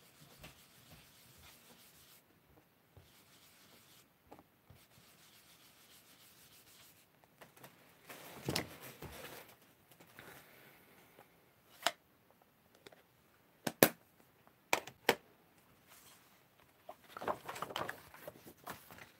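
Faint soft rubbing of an ink blending brush on cardstock, then a few sharp clicks of small tools set down on the craft desk, the loudest about two-thirds of the way through. Near the end, a sheet of cardstock rustles as it is lifted.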